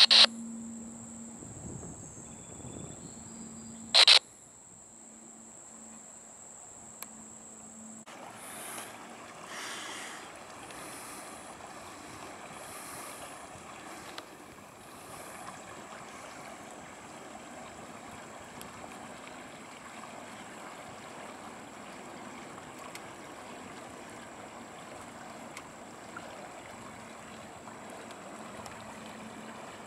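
A short, loud burst from a scanner radio about four seconds in. Apart from that, a faint steady rushing noise with a thin, steady high-pitched insect whine over it.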